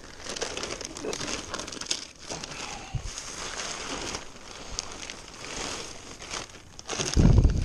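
Plastic wrapping crinkling and crackling as it is handled and pulled off a crated wood chipper, with a loud low bump or rumble near the end.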